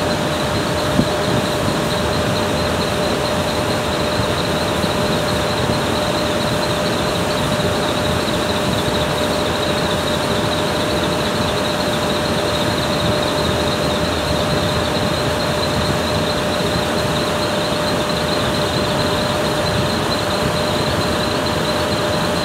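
Floor-standing air conditioner's blower running steadily, air rushing from the unit with a thin steady whine over it; a single click about a second in.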